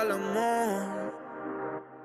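Background pop music with a gliding melodic line; it thins out and drops in level near the end.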